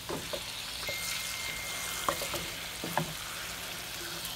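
Raw steak sizzling as it goes into a hot, oiled nonstick pan, the hiss building slightly about a second in. A wooden spatula knocks against the pan a few times.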